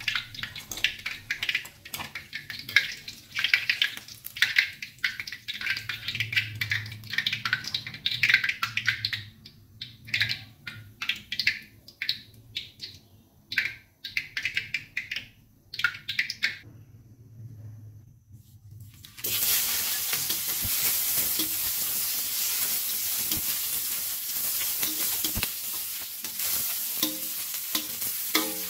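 Meatballs deep-frying in a wok, with crackling bubbles, then a stretch of scattered knocks and a short quieter gap. About two-thirds of the way in, a loud, steady sizzle starts as aromatics hit the hot oil, and near the end a spatula stirs them.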